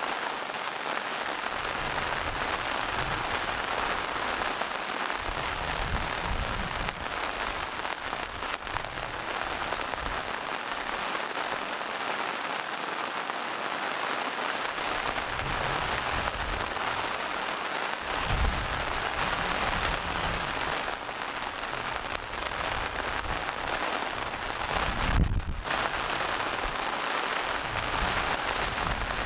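Steady rain falling on forest leaves and rocks, an even hiss, with scattered low thumps. The loudest thump comes about 25 seconds in.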